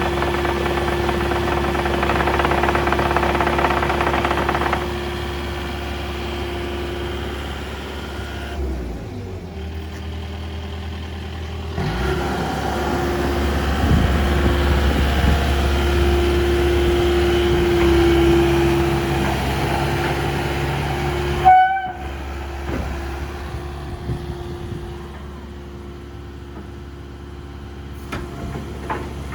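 Kubota KX080-X2 midi excavator running, its diesel engine and hydraulics holding a steady whining tone that eases and picks up again as the load changes. About two-thirds of the way through comes one short, loud, pitched blip.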